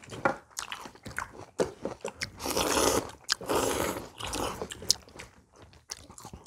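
People eating: two long slurps of kimchi kalguksu noodles about halfway through, among chewing, crunching bites and small clicks.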